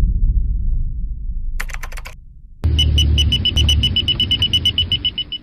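Produced sound effects: a low rumble that fades away over about two seconds, with a brief flutter of high ticks. Then a sudden run of rapid, evenly spaced high beeping ticks, about eight a second, over a low rumble, lasting nearly three seconds, like a typing effect.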